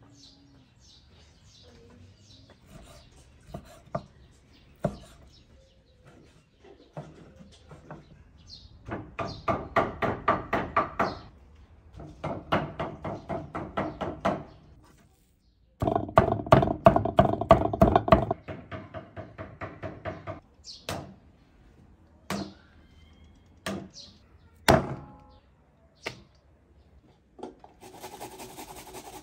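Knife chopping fast on a wooden cutting board, in runs of several strokes a second; the loudest run comes a little past halfway, with scattered single knocks after it. Near the end, a steady rasping of food being drawn over a metal box grater.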